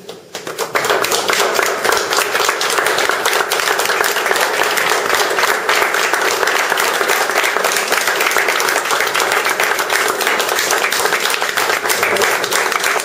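A crowd applauding, breaking out suddenly about half a second in and keeping up steadily.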